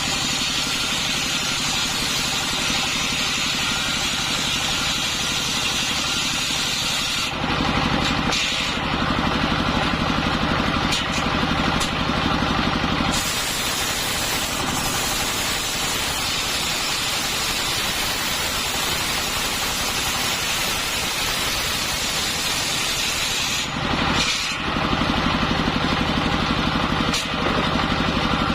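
Engine-driven circular disc saw working through hard coconut-palm wood: a dense, harsh hiss while the blade is in the cut, from the start to about 7 s and again from about 13 s to about 24 s, dropping to the steady drone of the engine running free in between.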